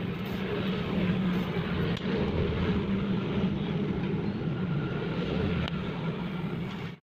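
Gas heating torch burning with a steady rushing hiss, heating a motorcycle's steel exhaust bend pipe so it can be bent outward. The sound stops abruptly near the end.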